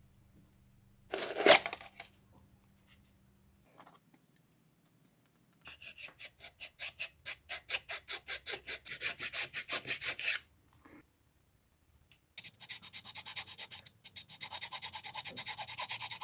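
A thin flat abrasive tool scraped rapidly back and forth between the carbon brush holders of a car wiper motor, about four strokes a second in two runs with a short pause between. A single loud knock comes about a second and a half in.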